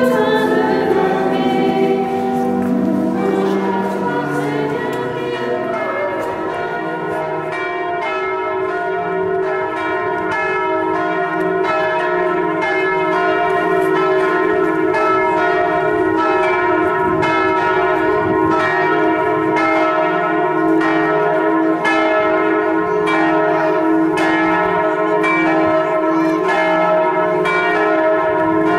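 A congregation singing, which within the first few seconds gives way to church bells pealing: repeated, evenly spaced strikes with the ringing of each bell carrying over into the next.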